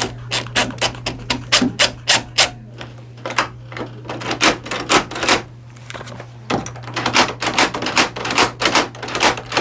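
Rapid, irregular sharp clicks as screws are driven into the door's latch plate, a few clicks a second with short pauses between runs.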